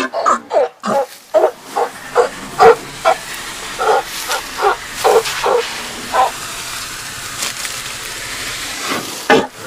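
A quick run of short animal calls, about two a second, that stops about six seconds in, followed by a steady rushing noise.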